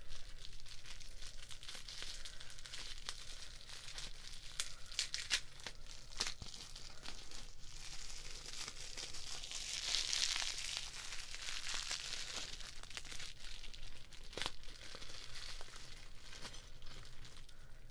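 Bubble-wrap pouch being crinkled and squeezed in the hands: a continuous plastic crackle with many sharp little clicks, densest about ten seconds in.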